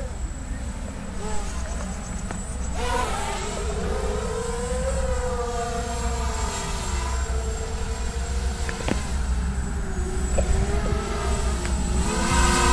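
Grasshopper 300 hexacopter's six small brushless motors and propellers whining in flight. The pitch rises and falls with the throttle, louder from about three seconds in and loudest near the end.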